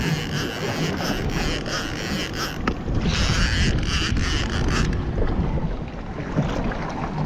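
Wind buffeting the microphone over the steady hum of a sport-fishing boat at sea, with gusts of hiss that ease off after about five seconds.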